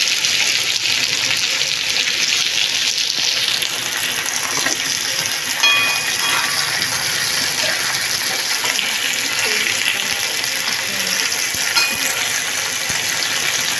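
Sliced potatoes sizzling steadily in hot oil on a flat tawa, the sizzle strongest in the first few seconds. A short metallic clink comes about halfway through, and a click near the end as a spatula turns the slices.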